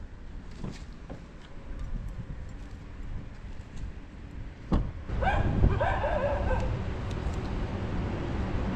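A sharp knock like a car door shutting, then a dog yelping and whining for about a second and a half over a steady low hum.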